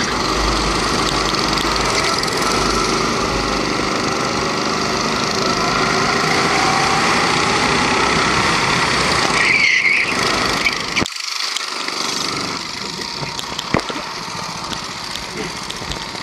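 Rental kart's Honda 270cc four-stroke engine running at speed with wind noise. A short squeal comes about ten seconds in as the kart goes off onto the grass, then the engine sound cuts off suddenly, and a single sharp knock follows a few seconds later.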